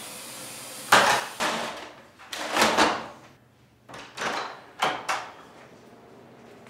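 A run of sharp bangs and knocks from a bathroom door, about half a dozen over four seconds, with a longer rough burst about two and a half seconds in.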